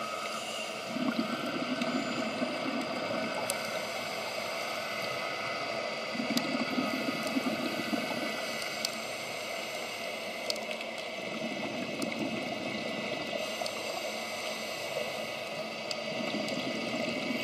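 A scuba diver's regulator exhaust heard underwater: exhaled bubbles come in four bursts about every five seconds, each lasting a second or two, over a steady hiss with a few faint clicks.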